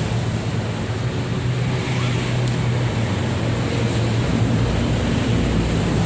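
Steady outdoor rumbling noise with a constant low hum, with a faint sharp click about two and a half seconds in.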